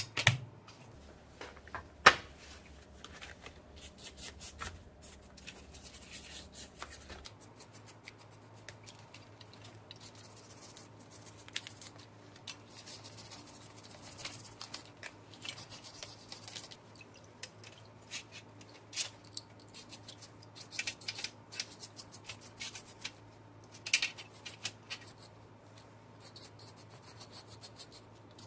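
Small workbench handling noises: plastic drill parts clicking and knocking, with a sharp knock about two seconds in, and a paintbrush's bristles scrubbing and scratching over the parts as they are cleaned.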